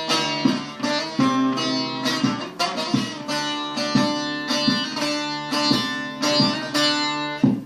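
Instrumental break of a Turkish folk song: a plucked string instrument plays a quick melody of sharply attacked notes over a held low note.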